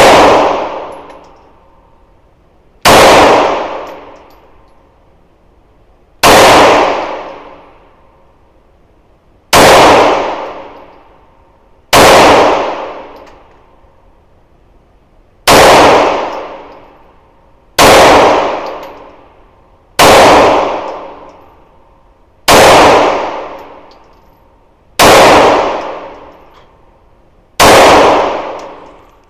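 Pistol fired in slow single shots, eleven in all, about one every two to three seconds. Each shot rings out and fades over a second or more in the enclosed indoor range.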